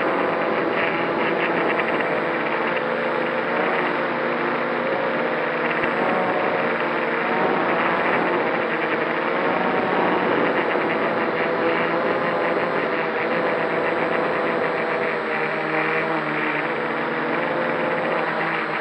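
Electric motors and propellers of a multirotor drone carrying a heavy payload, heard from its onboard camera: a steady whine whose several tones drift slightly up and down as the throttle adjusts to hold the hover.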